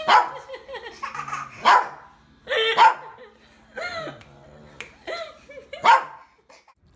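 Small shaggy dog barking in short, sharp barks, about six of them roughly a second apart.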